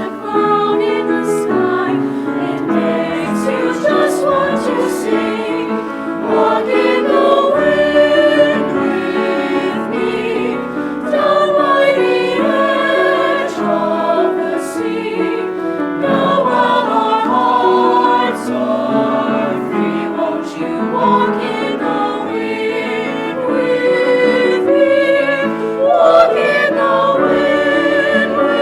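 A high school choir singing a song in several parts.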